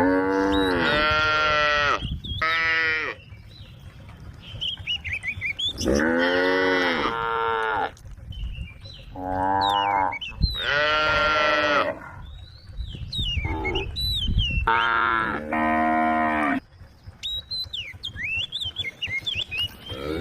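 Cows mooing again and again, about seven long, low calls, each one to two seconds long, with short pauses between them.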